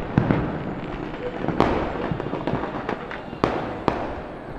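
Firecrackers bursting: several sharp bangs at irregular intervals, the loudest about one and a half and three and a half seconds in, over a steady noisy background.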